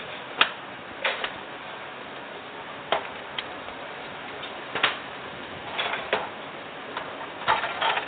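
A handful of short clicks and light knocks at irregular spacing, a second or two apart, over a faint steady background.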